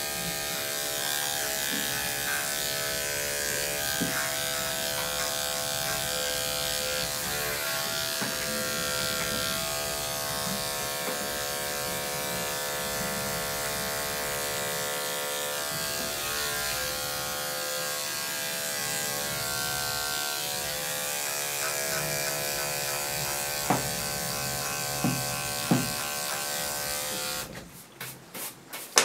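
Electric dog grooming clippers running with a steady hum as they cut through a dog's long coat. A few sharp clicks come near the end, and the hum cuts off shortly before the end.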